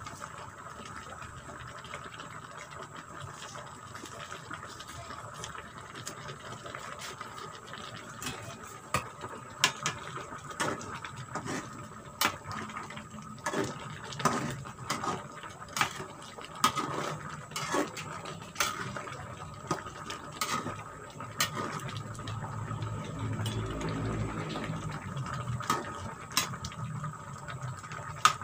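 Sour soup simmering and bubbling in a large pan, with a metal ladle clinking and scraping against the pan as it is stirred, in irregular sharp taps from about eight seconds in. A low hum swells for a few seconds near the end.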